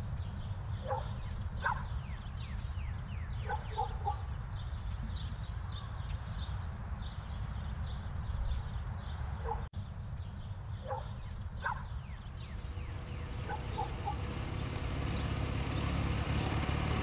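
Outdoor rural ambience: scattered short calls of farmyard fowl and many quick high chirps over a steady low rumble, growing slowly louder toward the end.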